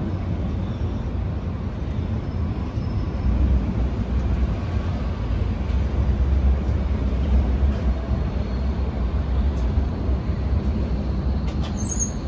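Berlin U-Bahn train rolling slowly along the platform: a steady low rumble of motors and wheels on the rails, swelling midway. A few clicks and a brief high squeal come right at the end.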